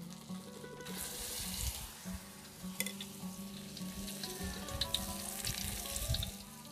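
Batter-stuffed tofu deep-frying in hot oil in a wok: a steady sizzle with scattered sharp pops and crackles, starting about a second in.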